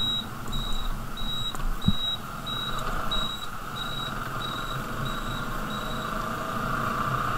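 A 100cc motorcycle running on the move with wind noise, while a high electronic beep repeats about one and a half times a second and stops about six seconds in. A single sharp knock sounds about two seconds in.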